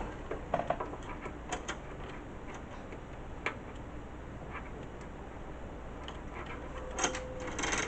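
Scattered light clicks and taps of plastic and metal as a hard drive and its SATA cables are handled and fitted inside a desktop computer case.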